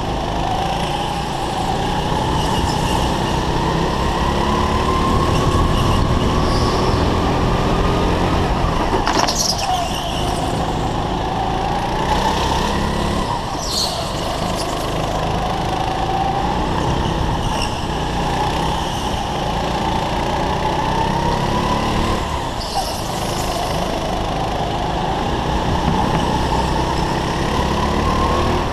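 Go-kart engine heard on board, its pitch climbing steadily along the straights and falling away into the corners, over and over. A few brief high-pitched squeals come through along the way.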